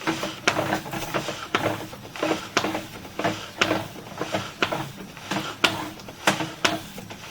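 Sewer inspection camera's push cable being pulled back out of the line, clicking regularly about twice a second over a steady hum.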